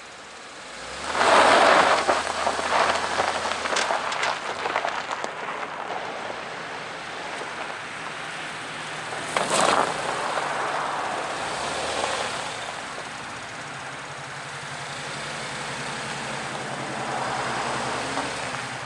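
Cadillac SRX's V6 engine pulling under load while the tyres scrabble on loose ground. There is a loud surge of noise about a second in, another brief one around halfway, and steadier running after that.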